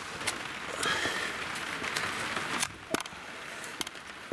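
A towel rustling and scraping as it is pushed up against the underside of the roof, with a few sharp clicks and knocks of handling. Rain patters faintly on the roof underneath. The rustling dies down about two and a half seconds in.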